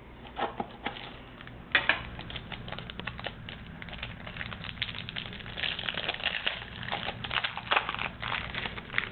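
Plastic card-pack packaging crinkling and crackling as it is torn open and handled: a dense run of small crackles, thickest in the second half.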